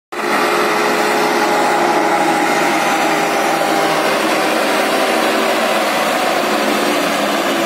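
Sonalika 60 RX tractor's diesel engine running steadily under load as it pulls a fully loaded sand trolley.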